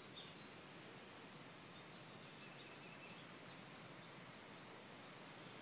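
Near silence: faint outdoor background hiss with a few faint, high bird chirps.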